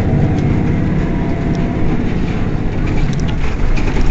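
Mercedes-Benz Citaro city bus's rear-mounted engine idling steadily, a low rumble, with a few faint clicks in the second half.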